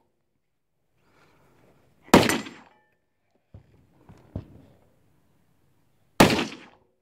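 Two rifle shots about four seconds apart, each sharp report trailing off over about half a second, with a couple of fainter sharp knocks between them.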